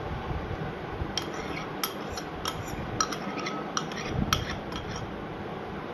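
Spoon clinking and scraping against a bowl as yogurt is scraped out over chicken pieces: an irregular run of light, sharp clicks over a steady background hiss.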